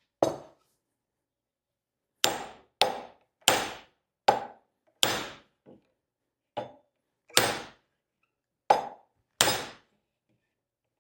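Hammer blows on a flatter driving a spalted maple wedge into the kerf of an axe handle to set the head: about ten sharp metal-on-metal strikes at an uneven pace, a few lighter than the rest, each with a brief ring.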